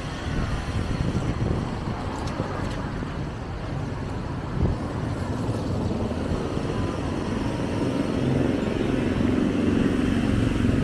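Street traffic: vehicle engines running continuously, with one engine drawing closer and growing louder near the end.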